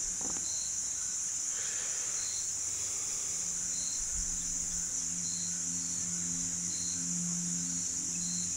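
Steady high-pitched insect chorus, with short chirps about every one and a half seconds. A faint low hum joins about halfway through.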